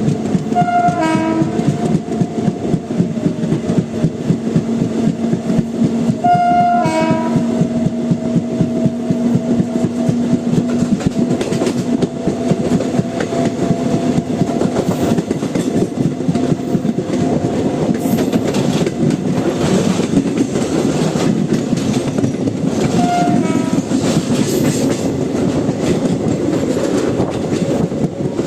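Indian Railways WAP-7 electric locomotive's horn sounding over the continuous clatter of the train's wheels on the track. A long held horn note runs through roughly the first ten seconds, with short higher blasts about a second in, around seven seconds, and again around twenty-three seconds.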